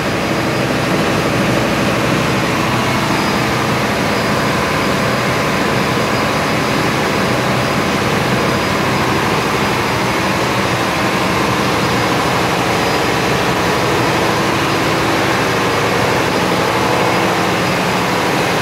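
Ship's diesel generator set running at a steady constant speed: a loud, unchanging engine-room drone with a steady hum in it.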